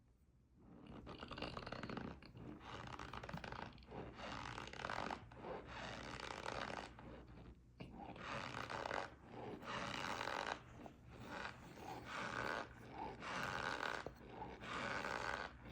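Packed Iberia cornstarch crunching and squeaking under pressure, in a long series of rough crunches, each about half a second to a second long, starting about a second in.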